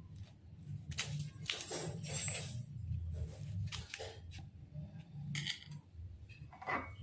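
Handling sounds: a series of irregular short clicks, taps and scrapes, over a steady low hum.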